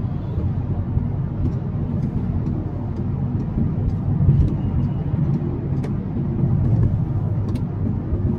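Steady low road and engine rumble inside a car cabin while driving at highway speed.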